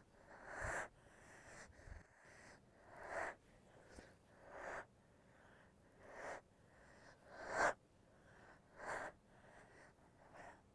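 A woman's sharp, audible breaths: six short gasping inhales or exhales, roughly one every second and a half, with near silence between them.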